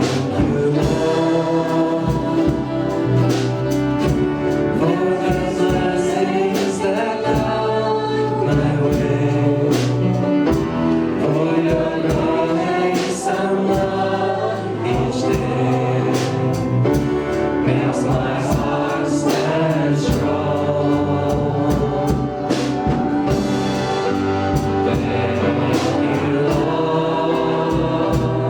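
Congregational worship music: a group singing a gospel worship song together over a live band with a steady beat.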